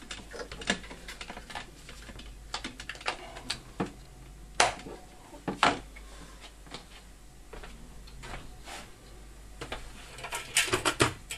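Irregular light clicks and clatter from hands handling plug, cables and tools, with two sharper clicks around the middle and a quick run of clicks near the end.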